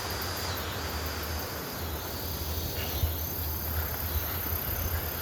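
Insects outdoors keeping up a steady high-pitched buzz, over a low steady rumble.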